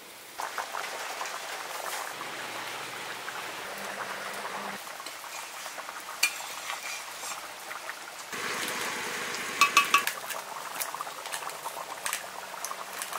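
Duck curry simmering in a metal pan while a metal ladle stirs it, knocking against the pan now and then, with a quick run of clinks a little past the middle.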